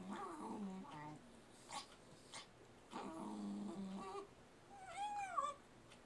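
Small dog growling over its bowl of ice cream in two steady stretches of about a second each, with a couple of sharp licking clicks between them and a rising-then-falling whine near the end.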